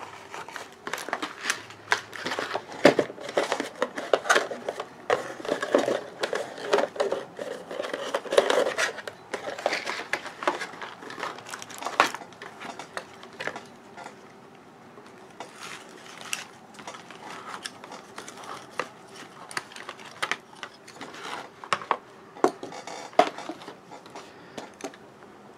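Packaging being handled as a fashion doll is worked free of its cardboard display box: rustling and crinkling with many small clicks and taps. It is busy in the first half and thins out to scattered clicks later.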